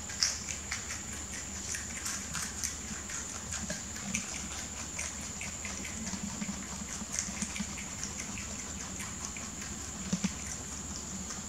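Rabbits chewing and tearing leafy greens: quick, irregular crisp crunches and rustles of stems and leaves, with a steady high-pitched whine underneath.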